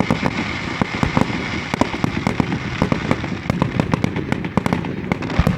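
Fireworks going off in a rapid, continuous string of sharp pops and cracks over a steady hiss.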